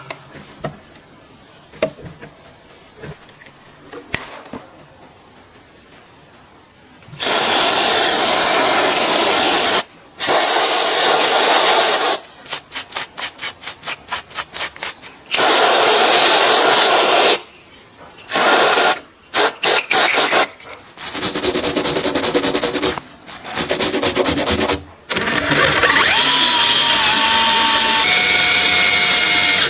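Small clicks and light knocks for about seven seconds, then the Makita TW122D electric screwdriver running in loud bursts of one to three seconds, with two stretches of rapid stop-start.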